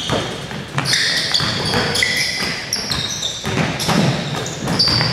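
Indoor basketball game: a ball bouncing on a hardwood gym floor and players' sneakers squeaking in short high chirps, all echoing in the hall.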